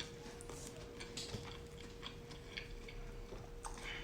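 Faint chewing of a crispy fried chicken sandwich: scattered soft crunches and mouth clicks, over a faint steady hum.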